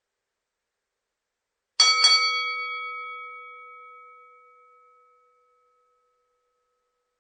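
Boxing ring bell struck a few times in quick succession about two seconds in, then left to ring out and fade over about three seconds.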